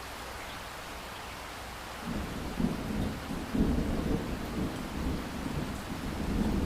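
Steady rain hiss, with a low roll of thunder coming in about two seconds in and rumbling on in several louder swells.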